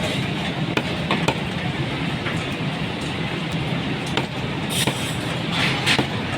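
A few irregular sharp knocks of a blade striking mutton on a chopping block, with a cluster near the end, over a steady background of street noise and a low hum.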